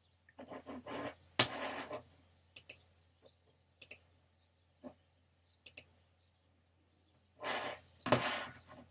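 A man breathing and sighing close to the microphone, a few short puffs early on and two near the end, with several sharp clicks in between.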